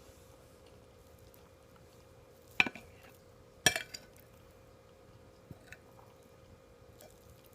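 Cutlery clinking twice against a dish, about a second apart, with a short ring after each, then a few faint ticks. A faint steady hum runs underneath.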